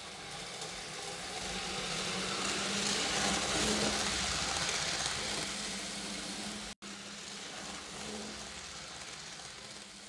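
Vintage Märklin model trains running on metal track: a rushing rolling noise with a steady low motor hum swells as a train comes close, then eases off. There is a sudden brief break about two-thirds through, and the quieter running sound continues after it.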